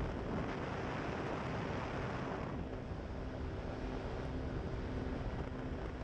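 Pterodactyl Ascender II ultralight's engine droning at a steady pitch, with wind rushing over the microphone. The wind noise is stronger for the first couple of seconds, then eases.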